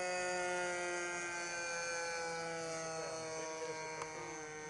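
Twin-cylinder engine of a radio-controlled model airplane in flight, running steadily with an even buzzing drone. Its pitch sags slightly about two seconds in, then holds.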